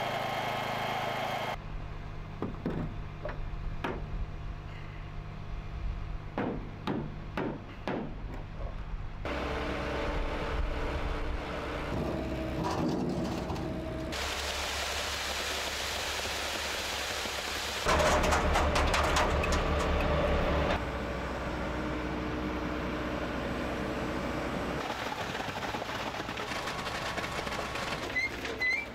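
Concrete-forming work: a run of hammer blows on wooden concrete forms, a small gasoline engine running steadily, and wet concrete sliding out of a crane bucket into the forms.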